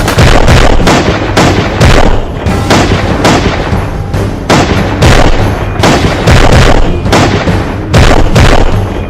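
Gunfire sound effects, a steady run of shots several times a second, over a backing music track with a low, steady bass.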